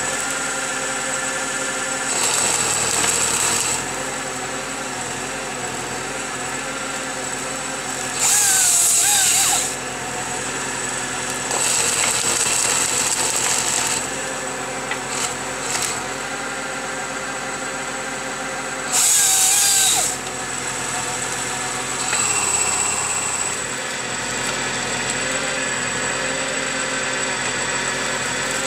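Valtra tractor's engine and the hydraulics of its crane-mounted Farmi 35 energy grapple running steadily, with a constant high whine. The grapple's cutting head works in repeated bursts of harsh, louder noise, the two loudest about eight and nineteen seconds in.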